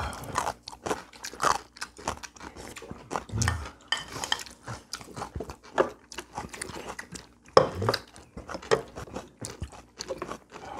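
People eating at a table: chewing and crunching food, with irregular clicks of chopsticks against bowls and dishes.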